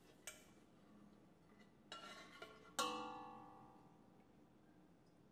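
A stainless steel ladle and pot clink together a few times. The loudest knock, about three seconds in, leaves a bell-like metallic ring that fades over a second or so.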